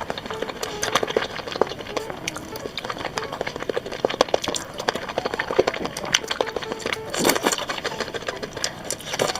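Close-miked eating: a person chewing and slurping food, with many quick wet mouth clicks and crackles at an irregular rhythm.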